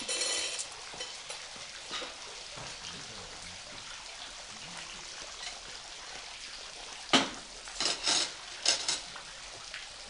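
A few short, sharp knocks and clicks, about five of them close together a little after halfway, the first the loudest, over a steady faint hiss.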